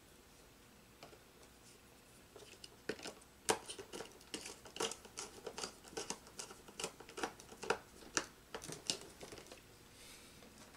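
Small clicks and rustles of insulated control wire being handled and pushed into a contactor's terminals, several a second from about three seconds in until near the end.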